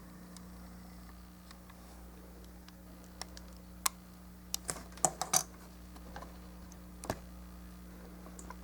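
Scattered light clicks and taps of hard plastic model-kit parts being handled and set down, with a quick cluster of clicks about five seconds in, over a faint steady hum.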